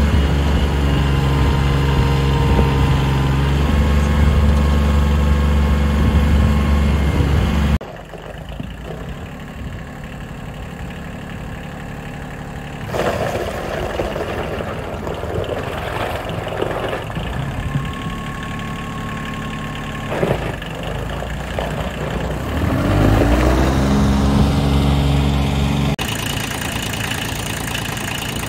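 Kioti LB2202 tractor's three-cylinder diesel engine running steadily while the tractor is driven. The level drops abruptly about eight seconds in. The engine revs up a little past twenty seconds in and settles back to a steady note.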